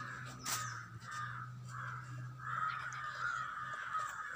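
Crows cawing over and over, about two short rough caws a second, with a low steady hum underneath.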